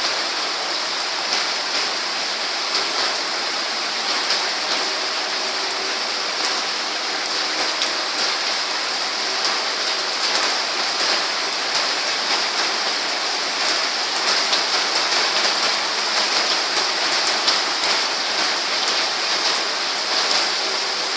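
Steady rain falling, a constant hiss with many separate drops striking close by.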